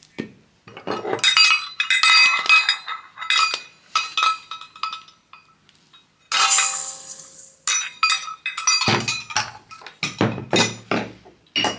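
Kitchen utensils clinking and ringing against a glass bowl as a quarter cup of sugar is measured and added to butter. A short rushing pour comes about six seconds in, and a run of duller knocks follows near the end.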